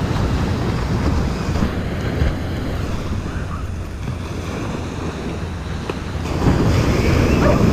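Wind buffeting the microphone over the steady wash of surf on the beach, growing louder about two-thirds of the way in.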